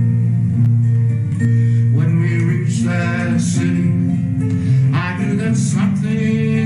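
Music: acoustic guitar playing, with a voice singing from about two seconds in.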